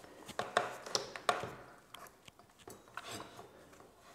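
A series of sharp clicks and knocks from a switched-off Redstone plunge-cut circular saw being handled on its guide rail while its cutting depth is set. There are four louder ones in the first second and a half and fainter ones after.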